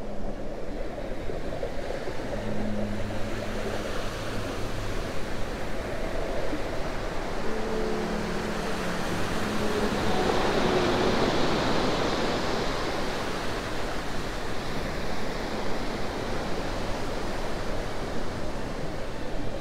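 Steady rushing, water-like ambience of the sort used for underwater scenes, swelling to its loudest about halfway through, with faint low held tones coming and going.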